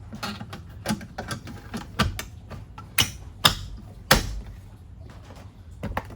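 Hard plastic door trim on a van door being handled and pushed into place: a string of clicks and knocks, the loudest about two, three and four seconds in.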